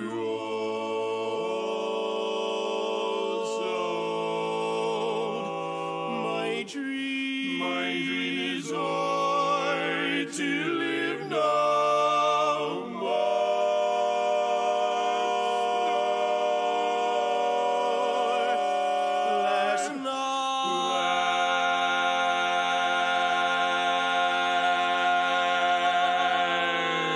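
Male barbershop quartet (tenor, lead, baritone and bass) singing a cappella in close four-part harmony, drawing out long sustained chords with vibrato. The chords shift several times in the first half and settle into one long held chord near the end.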